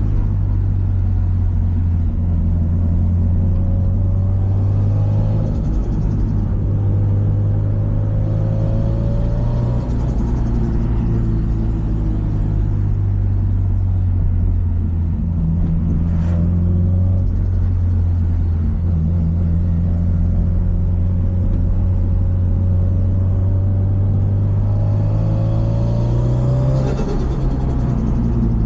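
Subaru Impreza WRX STI's EJ207 turbocharged flat-four running under driving load with a low, steady rumble. Its pitch rises and falls with throttle and gear changes, climbing to a peak near the end before dropping away. There is a brief sharp sound about sixteen seconds in.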